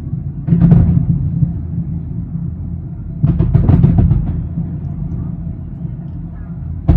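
Aerial fireworks shells bursting over a continuous low rumble: a boom about half a second in, a quick run of several bangs a little after three seconds in, and another boom right at the end.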